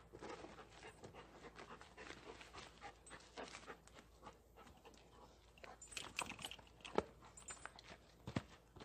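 A dog panting, with two sharp knocks near the end.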